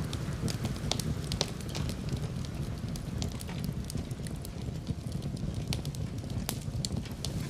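Fireplace crackling: scattered sharp pops and snaps, a few each second, over a steady low rumble.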